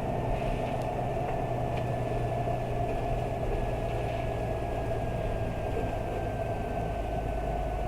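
Isuzu Erga city bus with its 6HK1 diesel engine running and the air conditioning on, heard from inside as a steady low drone and hum. A thin high whine falls slowly and evenly in pitch throughout.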